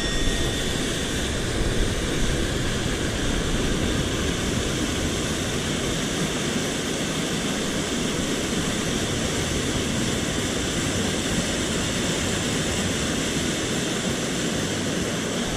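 Steady rushing of a mountain stream, an even roar of water that holds level without gusts or breaks.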